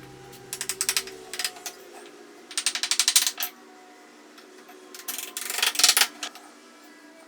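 Three runs of rapid clicking or tapping, each lasting about a second, with a faint tune fading underneath.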